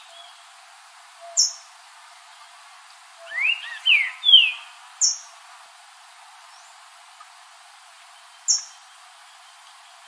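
Green-winged saltator singing one short phrase of three or four loud, slurred whistled notes, going up and down, about three seconds in. Single short, very high notes sound about a second in, at five seconds and near the end.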